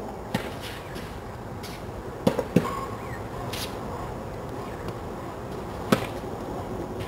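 Sharp pops of a tennis racket striking the ball, with the ball bouncing on a hard court: a faint one early, a close pair about two seconds in, and a strong single hit near the end, over a steady background hiss.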